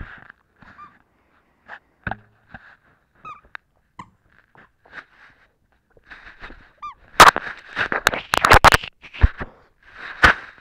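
A dog's squeaky toy gives short, repeated squeaks as it is chewed, with a louder, rapid run of squeaks and clicks about seven to nine seconds in.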